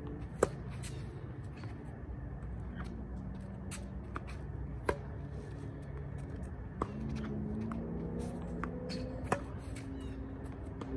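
Tennis balls struck with a Yonex EZONE racket: four sharp hits a couple of seconds apart, the first about half a second in, with fainter pops between them from balls being launched by the ball machine and bouncing.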